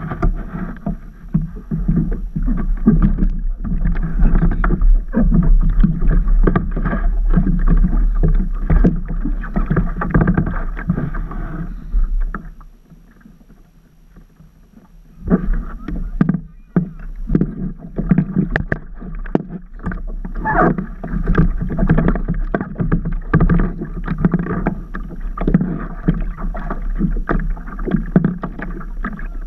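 Water splashing and slapping close up against a paddleboard, in short uneven strokes over a steady low rumble. It dies down for a couple of seconds about halfway through.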